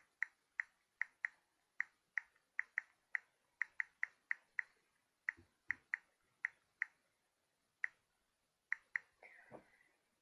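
Mobile phone key clicks as the phone's keys are tapped: faint short, sharp ticks in irregular runs of two or three a second, thinning out after about the middle.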